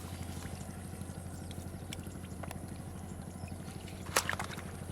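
A motor running steadily with a low hum, with a few light clicks and one sharper click about four seconds in.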